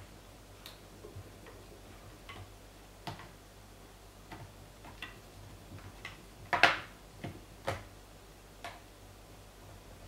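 Small irregular clicks and taps of a Phillips screwdriver seating in and turning the screws of a ThinkPad L450's plastic bottom cover, as the screws are tightened again. A louder clatter comes about six and a half seconds in, with another sharp tap about a second later.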